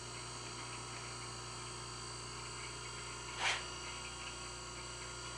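Taft-Peirce surface grinder running with its wheel spinning free, clear of the work: a steady hum with high, steady whining tones. About three and a half seconds in, a brief hiss stands out above it.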